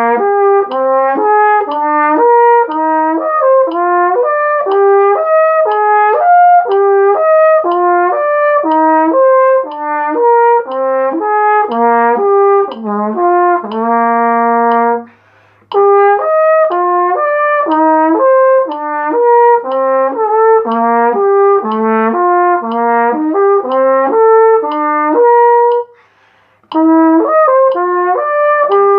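Flugelhorn playing a legato exercise, slurring up and down in intervals of sixths as a steady run of connected notes. There are two short breath breaks, one at about 15 seconds after a long-held low note and one near 26 seconds.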